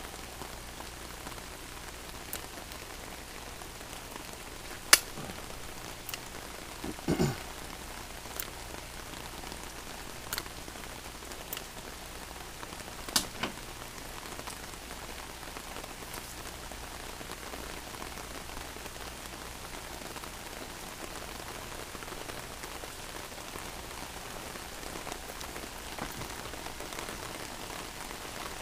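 Steady rain falling, with a few sharp clicks of single drops striking close by.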